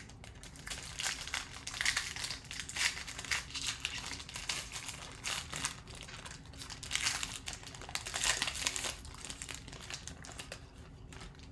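Foil wrapper of a Panini Elite football trading-card pack crinkling in uneven spells as it is handled and torn open by hand.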